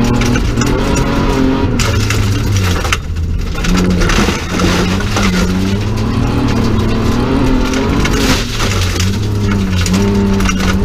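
BMW 325 rally car's straight-six engine under hard driving, heard from inside the cabin, its note rising and falling with throttle and gear changes, with gravel crunching and rattling under the car.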